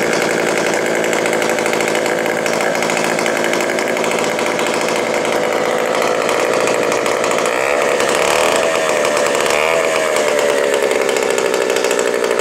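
Vintage two-stroke go-kart engine, off a Jacobsen, running steadily. Partway through, its speed rises and falls a few times as the throttle is worked by hand at the carburetor.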